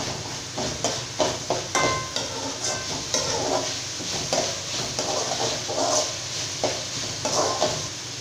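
Metal spoon scraping and tapping against an aluminium kadai as chopped potato and onion are stirred in hot oil, with sizzling underneath. The strokes come irregularly.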